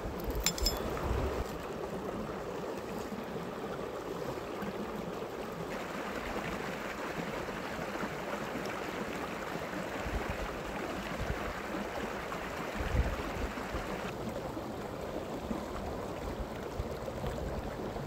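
A shallow stream running over rocks, a steady rush of water that grows fuller and brighter for several seconds in the middle. A few low rumbles come and go.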